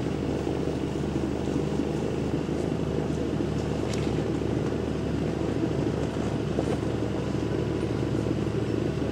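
Cabin cruiser's inboard engine ticking over steadily at idle, an even low hum. There is a single light click about four seconds in.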